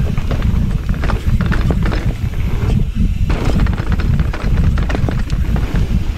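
Transition Relay mountain bike descending a rough dirt trail: a constant low rumble of tyres over the ground, broken by many quick clicks and knocks from the chain and frame as it runs over bumps and roots.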